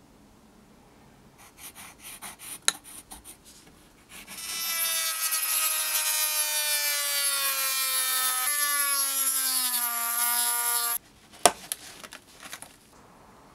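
Handheld rotary tool with a cut-off wheel cutting through a white plastic sheet: a steady high whine that starts about four seconds in, sags slightly in pitch as it cuts, and stops abruptly. Light handling clicks come before it, and a sharp snap and rustling of the sheet after.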